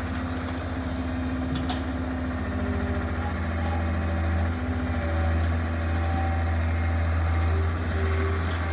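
Diesel engine of a Hitachi EX100-1 wheeled excavator running steadily while the arm digs and dumps soil, with a strong low hum and held higher tones that come and go as the machine works.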